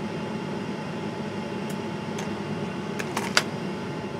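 Steady hum of a running hot water heater, with a few light clicks and taps of a circuit card and plastic being handled between about two and three and a half seconds in.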